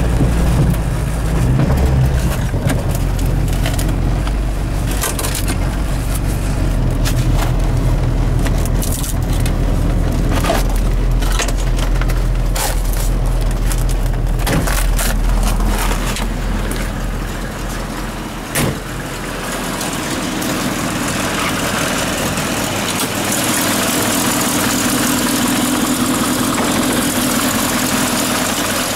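Suzuki Samurai's 1.3-litre carburetted four-cylinder engine idling steadily during a cold start in about −20 °C, heard first from the cabin with scattered clicks over the drone. A single sharp knock comes a little past halfway, and after it the engine sounds hissier, with a steady hum.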